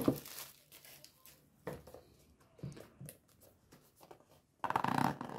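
Clear plastic shrink wrap crinkling as it is pulled off a cardboard box, then quieter handling of the box: a few soft taps and rustles, and a louder brief rustle of cardboard being handled near the end.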